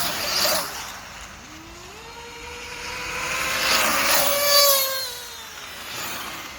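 Radio-controlled racing buggies and truggies running on the track: a motor whine rising in pitch and holding, with cars passing close twice, the louder pass about four and a half seconds in.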